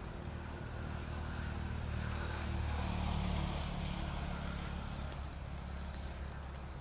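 A low, steady engine rumble that swells to its loudest about three seconds in and then eases off.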